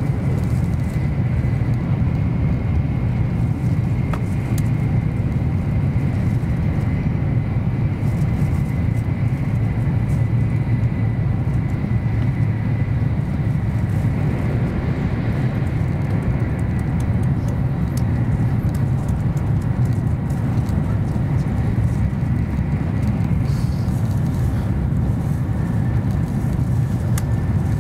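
Inside the passenger cabin of an N700-series Shinkansen running at speed: a steady low rumble of running gear and air, with a faint high whine held throughout.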